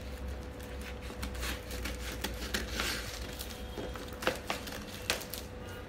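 Scissors cutting through the plastic wrapping of a courier parcel, with the plastic crinkling and a couple of sharper snips or clicks between about four and five seconds in.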